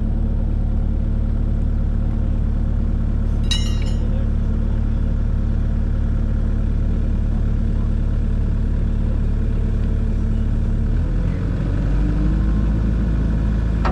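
Kubota KX057-4 mini excavator's diesel engine running steadily, its note changing about eleven seconds in. A brief high squeak sounds about three and a half seconds in.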